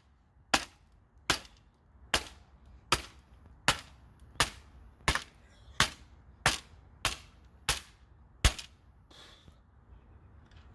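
A hammer striking the plastic parts of a printer: about a dozen sharp, evenly spaced blows, a little more than one a second, that stop about eight and a half seconds in.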